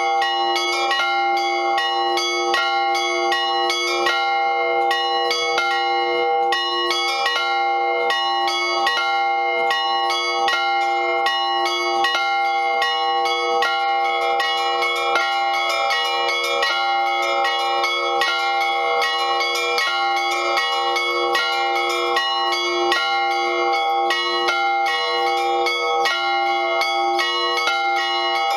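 A peal of four bells, three cast at the Liepājas Metalurgs works and one older cast bell, rung in a quick continuous pattern. The strokes follow close on one another, so the bells ring on without a break.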